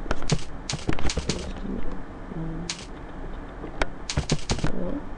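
Computer keyboard being typed on: quick runs of key clicks in short bursts, several keystrokes at a time, separated by pauses.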